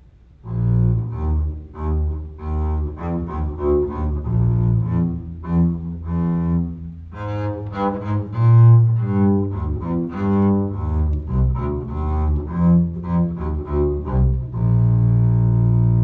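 Double bass played with the bow: a short classical excerpt, a run of sustained low notes starting about half a second in and ending on a long held note near the end.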